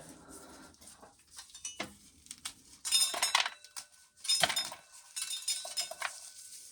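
Dry corn kernels clattering against metal as an ear of corn is worked through a corn sheller: a few bursts of rattling, each leaving a short metallic ring.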